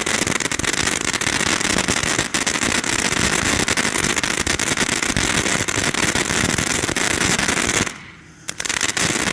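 Santan Fireworks Enterprise ground fountain firework burning, a steady rushing hiss thick with rapid crackling pops. It cuts out for about half a second near the end, then starts up again.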